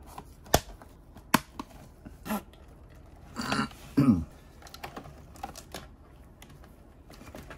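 Plastic zip ties being cut and pulled off, with a few separate sharp snaps in the first couple of seconds. Then a brief rustle, and about four seconds in a short low grunt-like sound that drops in pitch.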